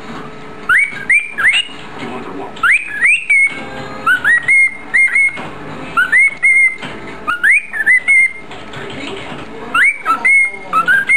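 Cockatiel whistling the same short phrase over and over: quick rising whistle notes in groups of two to four, about six groups, one every second and a half or so.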